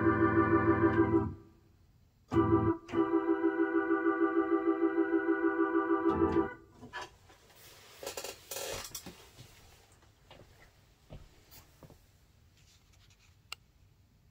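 Organ holding a sustained chord with a fast, regular wavering in its volume, which stops about a second in. After a short gap a second chord sounds for about four seconds and is released. Then only a few faint clicks and knocks follow.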